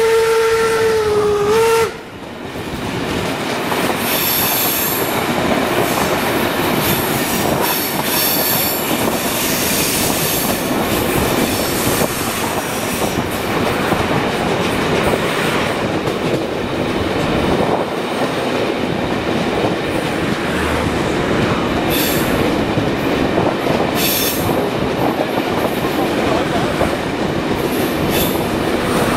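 Whistle of steam locomotive 01 202 sounding one held note that dips slightly and cuts off about two seconds in, then the steady running noise of the train heard through an open carriage window: wheels rolling on the track, with brief high squeals from the wheels a few times.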